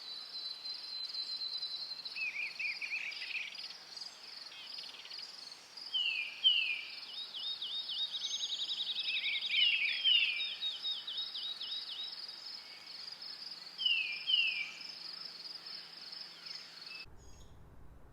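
Night-time cricket chorus with a steady pulsing chirp, overlaid with bird calls: pairs of downward-sweeping notes about six and fourteen seconds in, and a rapid run of repeated notes in between. Near the end the chorus cuts off abruptly, leaving a faint low hum.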